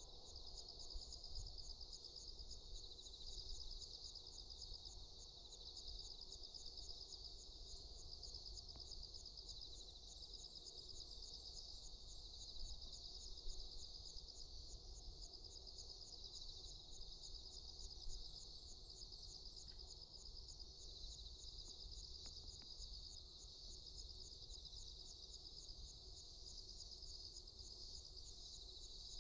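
Insects chirring in a steady, high-pitched pulsing chorus, over a faint low rumble.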